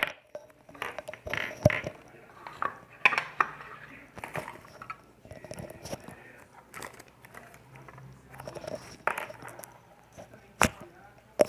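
Slime being squished and worked by hand, making irregular sticky clicks and pops, with a few sharper snaps near the end.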